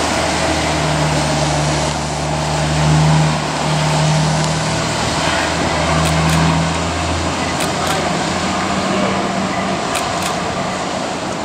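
Fireboat under way with its water cannons spraying: a steady rushing of water and engine noise, with a low drone that stops about seven seconds in.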